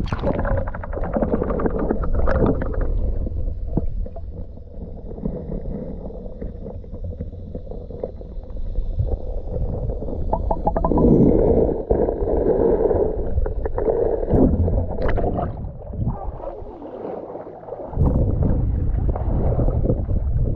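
Water splashing and sloshing right at the microphone over a steady low rumble, with a brief drop in level a few seconds before the end and then a loud return.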